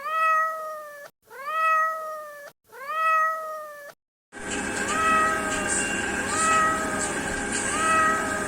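Domestic cat meowing: three loud drawn-out meows in quick succession, each rising then falling slightly, then after a brief break a second recording of softer, evenly spaced meows about every second and a half over a steady background hum.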